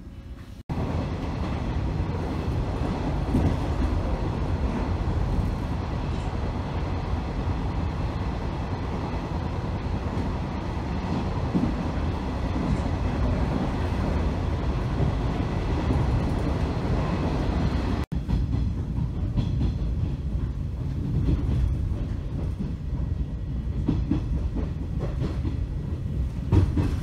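Old JNR 455-series express-type electric train heard from inside the car while running: a steady low rumble of wheels on rail with scattered knocks. It starts abruptly just under a second in and drops out for an instant about two-thirds of the way through.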